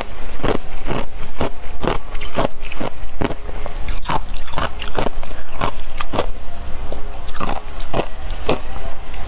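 Ice cubes coated in matcha powder being bitten and crunched, close up: a steady run of crisp crunches, about two or three a second.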